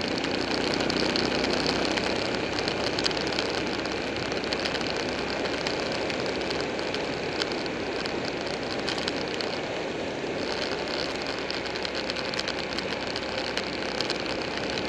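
Buell 1125R motorcycle's V-twin engine running steadily at road speed, mixed with wind and road noise.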